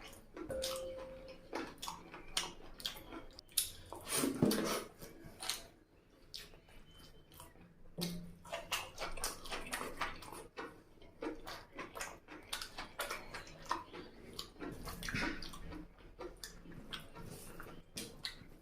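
Close-miked eating sounds of a person working through chicken curry with rice: irregular wet chewing, lip-smacking and slurping clicks.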